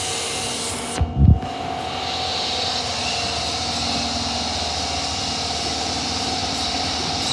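Steady hum and hiss of an Osaka Metro Tanimachi Line subway train at the platform, with a short low thump about a second in.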